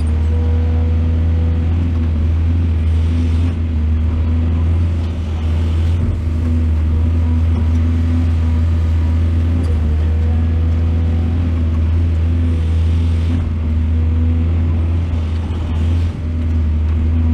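Heavy-equipment diesel engine running steadily: a deep, continuous drone with a few brief dips in level.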